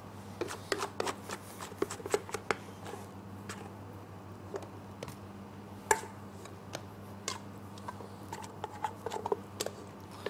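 Light clicks and knocks of a bowl and a plastic scraper against a stainless steel mixing bowl as sabayon is poured and scraped out onto whipped cream, over a steady low hum. The sharpest knock comes about six seconds in, and a quick cluster of taps follows near the end.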